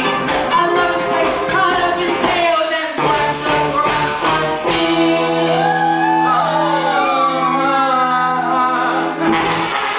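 Live band music: a woman singing over accordion, horns, electric guitar and drums. About halfway through the beat stops for a held chord while the voice slides up and down, and the full band comes back in near the end.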